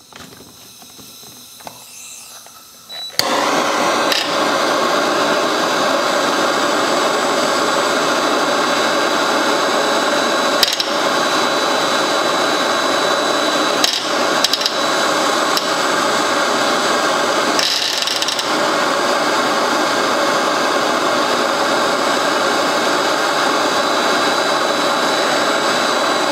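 MAP-gas torch flame hissing at full blast, together with a cordless drill holding a steel brake cable under tension while the torch heats it so the strands won't fray when cut. The loud, steady hiss starts suddenly about three seconds in and holds, with a few brief clicks.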